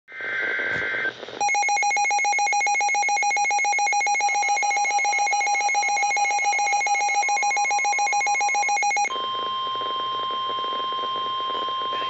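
Midland NOAA weather radio sounding a warning alert. A brief warble of data tones is followed, about a second in, by a loud fast-pulsing alarm beep that stops about three seconds before the end, leaving the steady NOAA Weather Radio warning alarm tone, which signals that a warning message follows.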